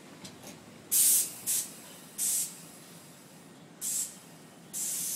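Compressed air hissing from a Tobu Noda Line electric train's brakes as it stops: five short hisses over a low running rumble, the first, about a second in, the loudest, and the last, near the end, lasting about half a second.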